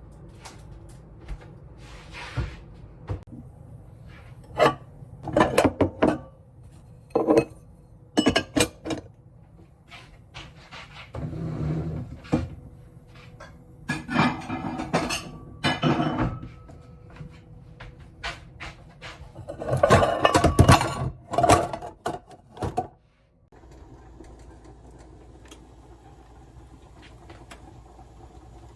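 Kitchen clatter: dishes, cutlery and pots knocked and set down in a run of clinks and knocks, busiest around twenty seconds in, then stopping suddenly.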